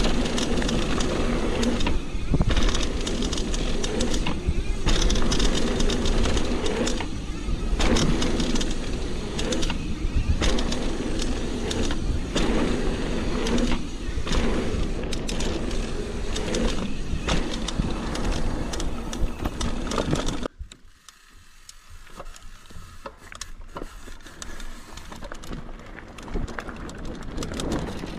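Mountain bike descending a trail: wind rushing over the microphone and tyres rumbling, with frequent knocks over bumps. About 20 seconds in the noise drops sharply as the bike slows, leaving quieter scattered clicks and rattles.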